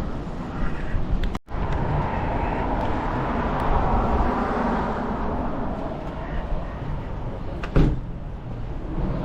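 Street traffic: a vehicle's sound swells and fades over several seconds, with wind rumbling on the microphone. The sound drops out for an instant about a second and a half in, and there is a sharp thump near the end.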